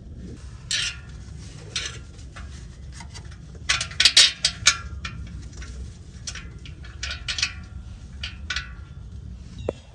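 Sharp metal clinks and rattles of tools, bolts and exhaust parts as a replacement muffler is hung and bolted up under a car. The loudest flurry comes about four seconds in, over a steady low hum.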